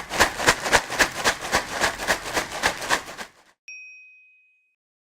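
A quick run of sharp hits, about three a second, lasting a little over three seconds and stopping abruptly. Then a single bright ding rings out and fades over about a second.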